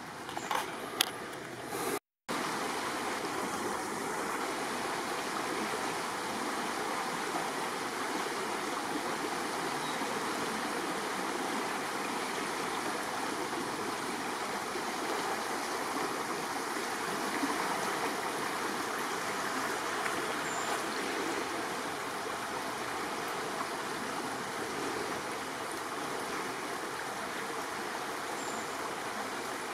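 Rain-swollen creek rushing steadily over its bed. A few sharp clicks come in the first two seconds, just before a brief dropout.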